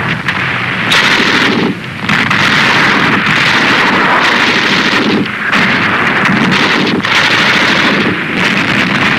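Battle sound effects: a loud, continuous din of explosions and gunfire that swells and dips briefly every few seconds.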